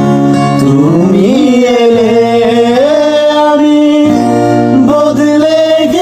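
Music: a Bengali song, a voice holding long notes that slide slowly between pitches, over instrumental accompaniment.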